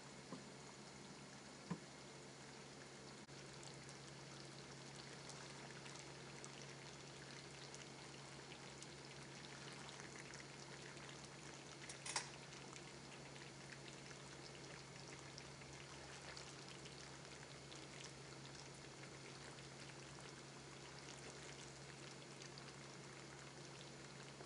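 Faint stovetop cooking sounds: a pot of pasta water at a rolling boil and a pan of chicken and cherry tomatoes simmering, a fine steady bubbling and crackle over a low hum. A light click sounds about halfway through.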